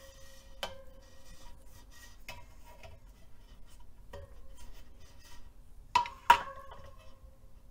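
Light metallic clicks and clinks as a bladed spoke holder and an internal nipple wrench are fitted to and turned on a carbon wheel's aero spokes, several clicks leaving a short ringing note from the tensioned spokes. Two louder clicks come close together about six seconds in.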